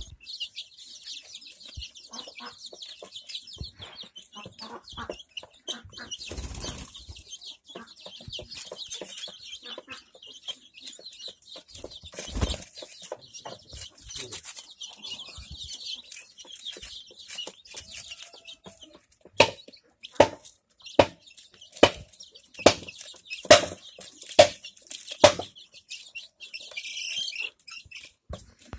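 Young desi chicks peeping steadily and high while feeding around a plastic feeder, with scattered light taps. Past the middle comes a run of about eight loud, sharp knocks, a little under a second apart.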